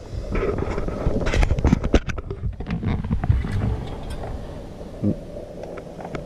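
A plastic dashboard trim piece being handled and fitted back into place: a string of small clicks and taps with rustling, and low bumps of handling on the microphone.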